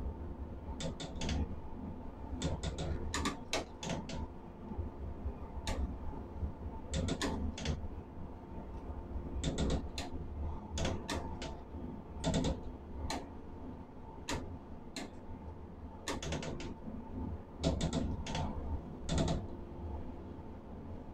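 Steel plant machinery around a molten-steel ladle: a steady low industrial rumble with a faint steady whine, broken by irregular sharp metallic clicks and knocks, some in quick clusters.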